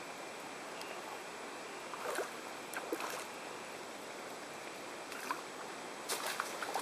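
Steady outdoor hiss at the water's edge, with a few brief faint sounds over it, the busiest cluster near the end.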